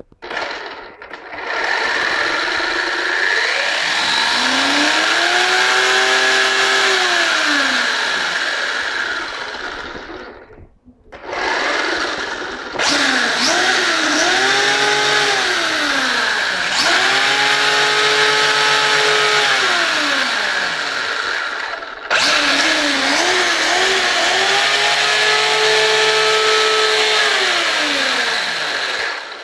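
Traxxas Slash 4x4 1/10 RC truck's brushless electric motor and four-wheel-drive drivetrain running with the wheels spinning in the air. The whine rises, holds at a steady pitch and falls away again about five times, over a steady high gear-and-tyre noise, with two short pauses in the running.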